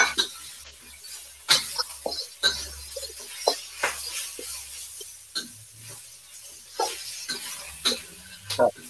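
Metal wok spatulas scraping and knocking against woks as flat rice noodles are stir-fried for pad see ew, irregular clacks about one to two a second.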